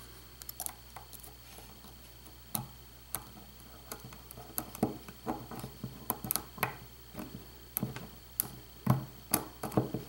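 A hook pick working the pin stacks of a euro-profile cylinder lock held under light tension by a tension wrench: small, sharp metal clicks and ticks at irregular intervals, sparse at first and more frequent from about four seconds in, over a faint steady hum.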